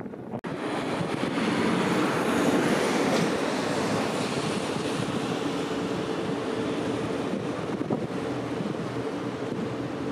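Steady low engine drone of a large oil tanker under way, over a rush of wind and water. There is a brief gap in the sound just after the start.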